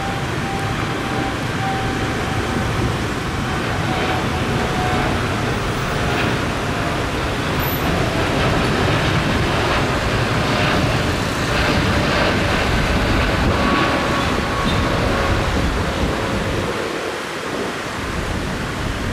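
Boeing 787 jet engines at takeoff thrust as the airliner climbs away: a loud, steady jet roar with faint tones sliding slowly lower.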